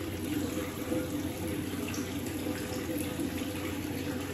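Bathroom sink faucet running steadily, water pouring into the basin.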